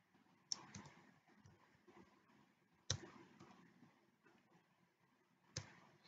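Faint clicks of computer keys as a password is typed, a few sharp ones spaced a couple of seconds apart with softer taps between.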